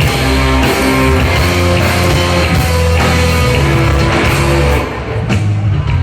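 Loud rock music with guitar, the sound dropping back a little near the end.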